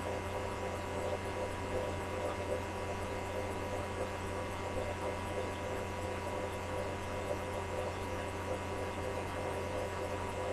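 Steady electrical hum with a constant hiss beneath it, unchanging throughout.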